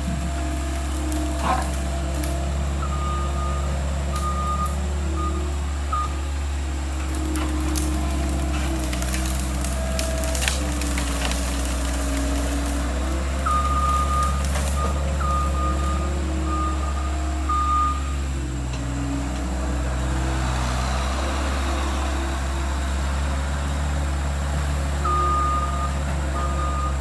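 Skid steer engine running steadily, with its backup alarm beeping in three spells as it reverses. There are a few sharp cracks, the clearest about ten seconds in.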